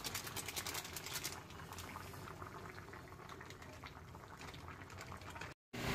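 Chicken stew boiling in a pan, with a dense crackle of small bubbling pops that is stronger for about the first second and softer after. The sound cuts out briefly near the end.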